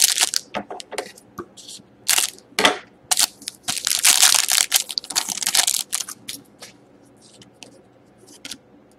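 Foil wrapper of a Panini Titanium hockey card pack crinkling and being torn open. Short sharp crackles lead into a dense stretch of crinkling about four seconds in that lasts roughly two seconds, then only a few light ticks as the cards are handled.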